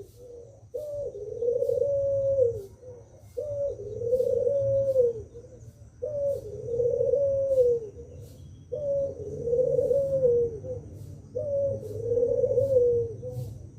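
Puter pelung, a cooing breed of collared dove, giving five long coos in a row. Each coo lasts about two seconds and comes about every two and a half seconds.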